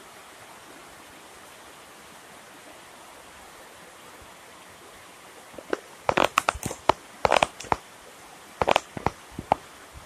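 Steady hiss of rain falling on vegetation and standing water. About halfway through, a cluster of sharp, loud clicks and knocks breaks in over the rain for a few seconds.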